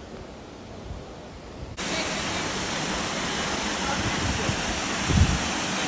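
Concord Falls waterfall rushing: a loud, steady noise of falling water that comes in suddenly about two seconds in, with a low thump near the end.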